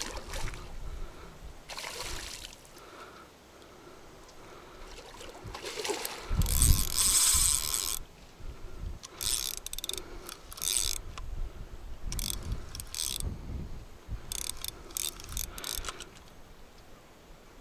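Fishing reel working in repeated short bursts, the drag and spool giving line and being wound in while a big hooked carp is played. The loudest stretch, about six to eight seconds in, carries a deep thud.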